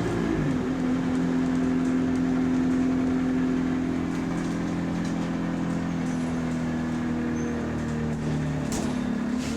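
Bus engine idling steadily, heard from inside the cabin; its hum drops and settles about half a second in, then holds.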